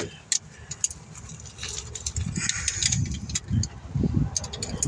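Scattered light metallic clicks and clinks of hand tools on metal, thickest near the end, over a low rumble.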